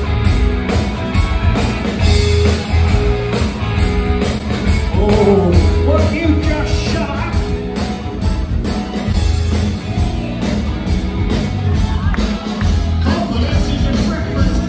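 Live party band playing an upbeat rock song: a singer over electric guitar, bass, keyboard and a steady drum beat.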